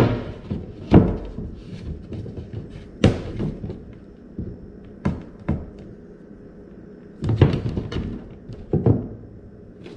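Irregular knocks and thuds, about six of them, some in quick clusters, as pieces are handled and set in place inside a wooden kayak's hull.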